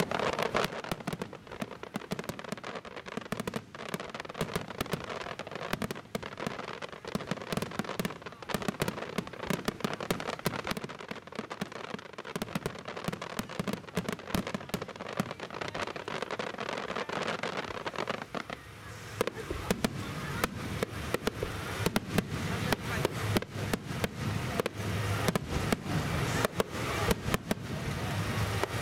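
Aerial fireworks shells bursting in a rapid barrage of dense, overlapping bangs and crackles. The bursts grow louder and heavier about two-thirds of the way in.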